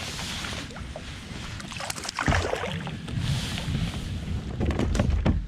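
Wind rumbling on the microphone over water sounds from a kayak, with a few knocks about two seconds in and again near the end.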